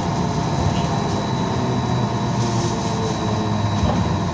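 BKM-321 trolleybus running along, heard from inside the cabin: a steady low rumble with an even, high electric whine from the traction drive.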